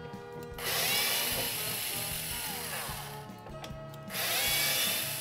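Cordless screwdriver running in two bursts of a couple of seconds each, backing the hinge screws out of a wooden kitchen cabinet door to take the door off.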